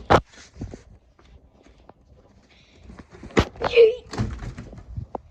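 Handling noise from moving an empty cardboard box: a sharp thud at the start, then quieter rustling and a second cluster of knocks and scrapes a few seconds in.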